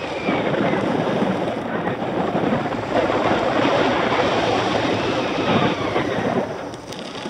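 Wind buffeting the microphone of a camera riding fast along a paved road, a dense rushing noise that eases briefly near the end.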